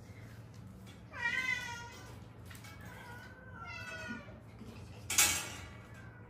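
Domestic cats meowing: two drawn-out, falling meows, about one second in and about three seconds in. A short, sharp, loud noise comes a little after five seconds.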